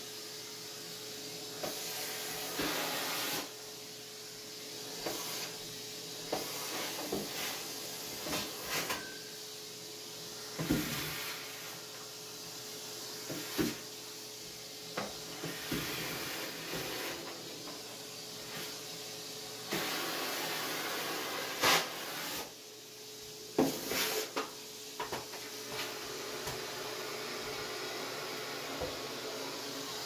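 Numatic Hetty canister vacuum running steadily with a constant hum, its hand tool cleaning beard trimmings and nail clippings off a bathroom counter. A few sharp knocks cut in now and then, the loudest about two-thirds of the way through.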